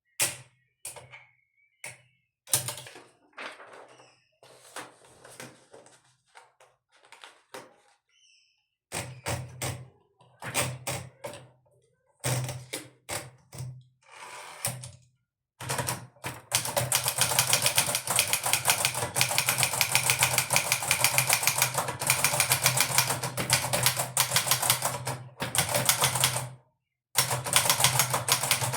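1958 Hermes Baby manual portable typewriter: scattered single key strikes and mechanical clacks for roughly the first half, then fast, steady typing with a brief stop near the end.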